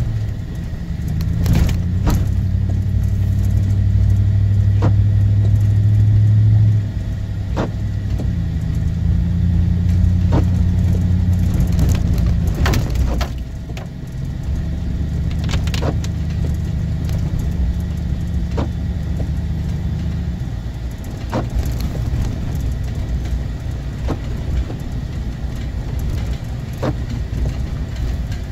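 Inside a moving car: low engine and road hum that steps up and down in pitch several times, with a short knock from the windshield wipers about every three seconds.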